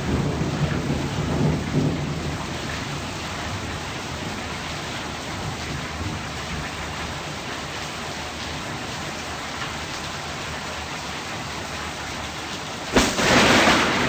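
Heavy rain falling steadily in a thunderstorm, with low thunder rumbling in the first couple of seconds. About 13 seconds in comes a sudden, very loud thunderclap from a close lightning strike.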